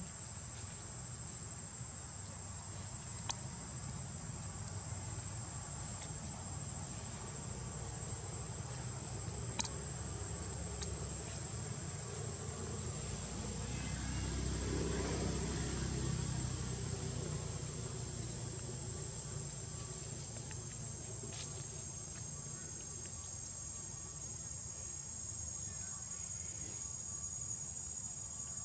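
Steady, high-pitched buzzing of an insect chorus, joined by a second, slightly lower insect tone about two-thirds of the way through. A soft low rush swells and fades in the middle.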